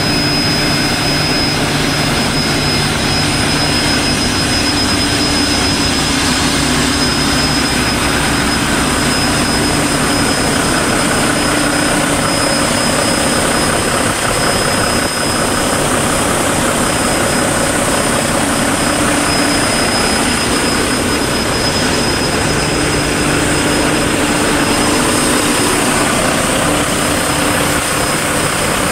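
Mack MP-series diesel engine of a 2014 Mack TD713 truck idling steadily, heard close up, with a thin high whine over the engine note.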